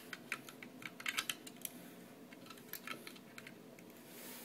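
Light clicks and taps of plastic Lego pieces as hands handle a small Lego tank's cockpit canopy and roof plate. The clicks come in an irregular scatter, most in the first two seconds and fewer later.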